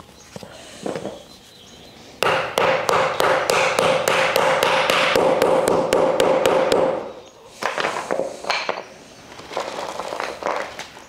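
A mallet tapping a wooden plant-stand upright into its connector: a rapid, even run of knocks, about four a second, starting about two seconds in and lasting some five seconds.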